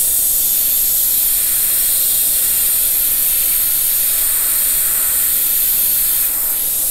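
Airbrush spraying black paint onto a cotton T-shirt, a steady high hiss of compressed air through the nozzle, easing slightly for a moment near the end.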